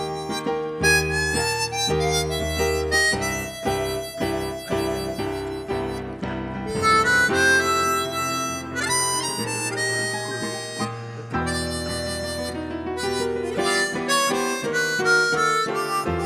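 Harmonica playing a solo melody over accompanying chords and a sustained bass line.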